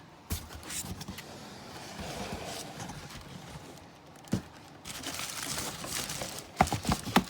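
Handling noise from packaging being moved and set down: rustling with scattered knocks, and a quick cluster of louder knocks near the end.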